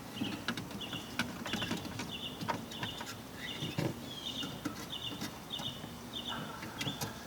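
A bird calling in a steady series of short, high chirps, about two a second, over scattered clicks and knocks of hands working around the headlight connector in the engine bay.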